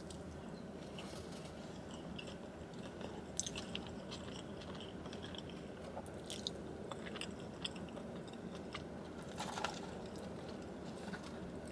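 Close-miked chewing and biting of In-N-Out animal style fries (fries topped with melted cheese, spread and grilled onions), with scattered small crunches and wet clicks over a steady low hum.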